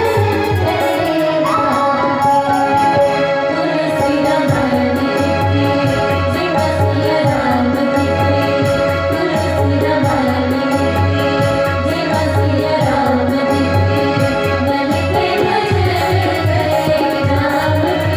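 Indian devotional music played loud through a PA sound system: singing over sustained keyboard chords, with tabla and a steady bass beat.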